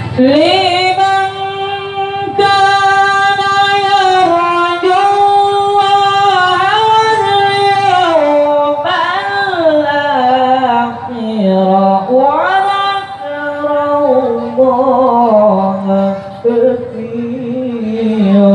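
A young male qari's Quran recitation, chanted in a high voice through a handheld microphone and loudspeakers, with long drawn-out ornamented notes that step down to a lower pitch in the second half.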